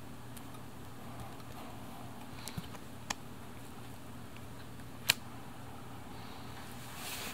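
A cat's paws and claws tapping a few times on a wooden floor and plastic grid floor mats as it bats at a cockroach. The loudest sharp click comes about five seconds in, and a brief rustle comes near the end, over a low steady room hum.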